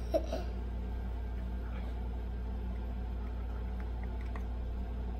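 Steady low hum of room tone, with one short vocal sound just after the start and a few faint light ticks about four seconds in.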